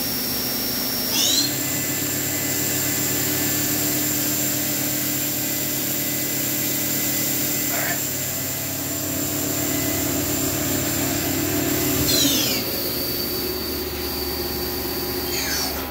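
The 10,000 RPM spindle of an Akira-Seiki Performa V4C CNC vertical machining center, running free with a high steady whine over a low hum. About a second in, the pitch rises as the spindle speeds up from 6,000 toward 8,000 RPM. It holds there, then steps down as the spindle slows, about 12 seconds in and again near the end.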